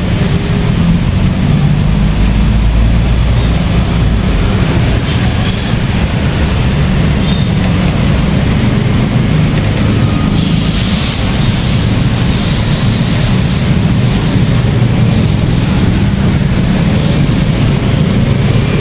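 Steady loud roar of a street-stall wok burner under the woks, with a hiss of water in the hot wok partway through as the cook swirls it with a ladle.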